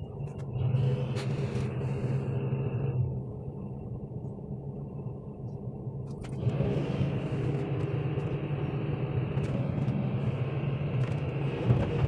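Low, steady diesel engine rumble from heavy marine or dockyard machinery.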